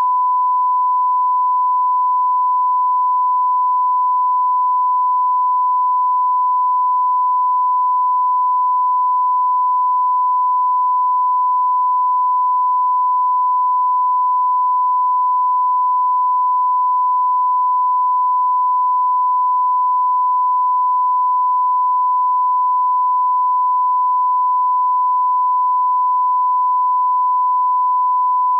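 Broadcast line-up test tone: one steady, unbroken pure tone at a constant level. It is the reference tone that plays with colour bars ahead of a TV programme.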